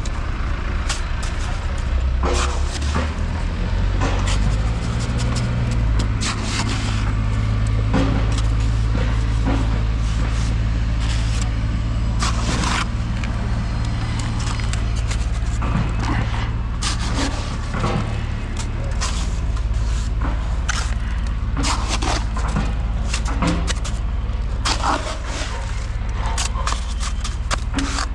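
A heavy engine running steadily with a low hum, which grows stronger about four seconds in, under frequent short knocks and clatter of construction work.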